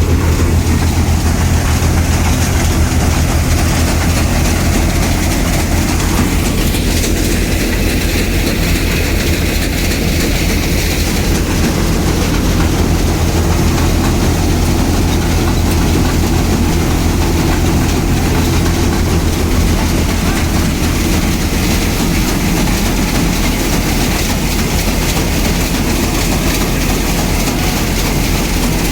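Wheat harvesting machine's engine running steadily, a loud constant low drone.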